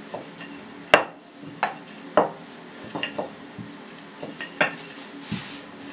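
A wooden rolling pin rolling out thin dough on a hard pastry board, with irregular sharp knocks and clacks as the pin strikes and is set down on the board, about six in all.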